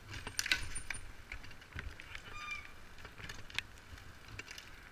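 Bike polo play on tarmac: scattered clicks and knocks of mallets, ball and bicycles, loudest about half a second in. A short, high honk-like squeal comes about two and a half seconds in.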